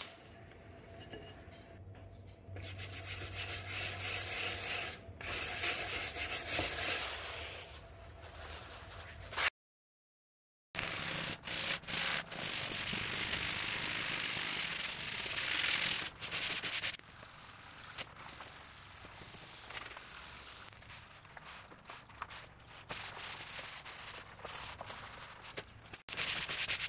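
Hand scrubbing a wooden tabletop with abrasive cleanser paste, first baking soda and then Barkeeper's Friend, to lift water stains: a rough rubbing scrub in uneven strokes. It cuts out completely for about a second near the middle.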